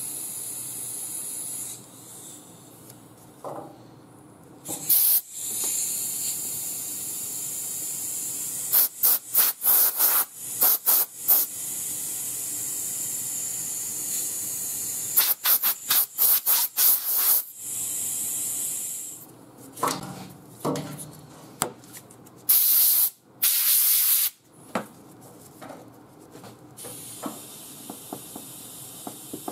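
Fine-grit abrasive (1200 grit) being rubbed by hand over wet car paint to level a run, a steady scratchy hiss. Breaking into it are clusters of quick squirts from a trigger spray bottle keeping the panel wet: several rapid ones twice, then two longer sprays near the end.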